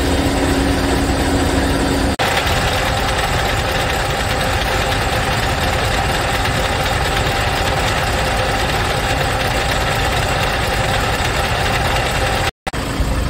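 Scania S truck's diesel engine idling steadily, heard close up under the chassis. About two seconds in the tone changes abruptly as the view moves nearer the engine, and the sound cuts out for an instant near the end.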